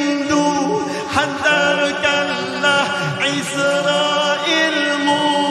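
Malay devotional nasheed (selawat) sung by layered voices in harmony, with long held notes that glide from one pitch to the next.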